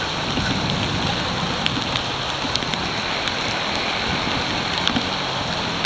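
Heavy rain pouring steadily, mixed with the rush and splash of floodwater as a bicycle rolls through a flooded street, with scattered sharp ticks of raindrops.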